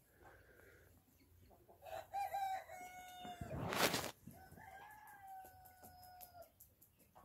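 A rooster crowing twice, each crow ending in a long held note, with a short loud rustle between the two crows.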